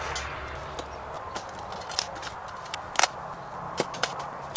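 Shovel digging and striking rocks in a post hole: a handful of sharp clinks and knocks from about two seconds in, the loudest about three seconds in, against scraping of soil.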